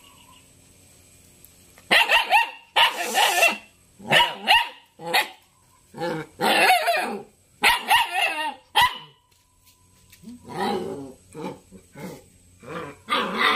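Young Belgian Malinois puppy barking and growling in a run of short bursts that starts about two seconds in, pauses briefly past the middle, then resumes in shorter bursts.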